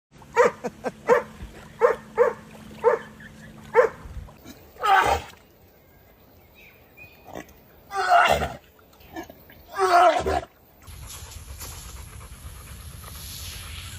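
An animal calling: a quick series of short calls, then three longer, louder calls a few seconds apart. A steady hiss follows near the end.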